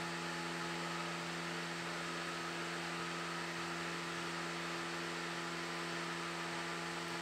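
Steady electrical hum made of several even pitched tones over a constant hiss: background room noise, with no other events.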